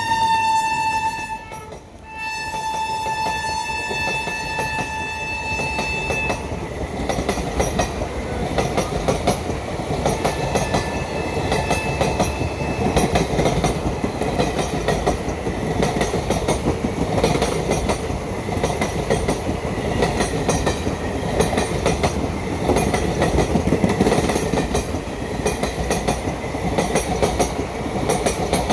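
Indian Railways electric locomotive's horn blowing, cutting off about a second and a half in and sounding again for about four seconds. Then the train runs on with a steady rumble and wheels clattering over the rail joints.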